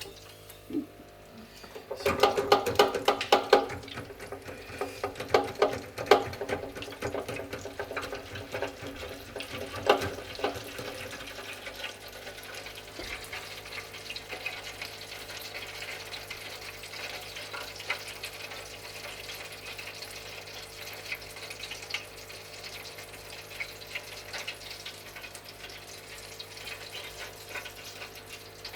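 Battered kingfish deep frying in hot oil: a loud burst of crackling sizzle about two seconds in, settling into a steady bubbling crackle.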